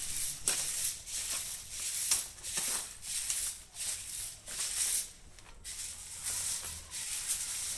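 A broom sweeping dry leaves and dirt in repeated swishing strokes, about one every half second, with a short pause a little past the middle.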